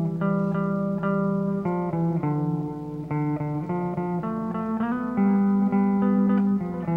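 Background music: a guitar track with plucked and strummed notes changing every half second or so.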